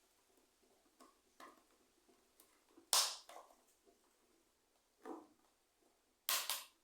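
Scattered short clicks and knocks of hands handling the parts of an electric fan under repair. The loudest comes about three seconds in and a quick pair comes near the end.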